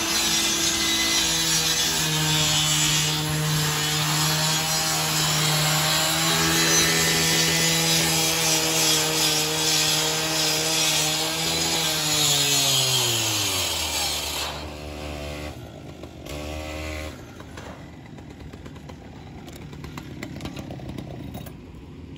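A gasoline rotary rescue saw runs at full speed, cutting into the car's front sheet metal with a grinding hiss. About twelve seconds in, the throttle is released and the engine winds down, with one short rev a few seconds later before it drops away.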